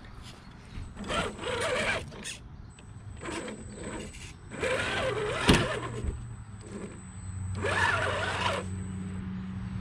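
Radio-controlled Redcat Gen8 rock crawler climbing boulders: its electric motor and drivetrain whine in three bursts that rise and fall with the throttle. A single sharp knock about five and a half seconds in.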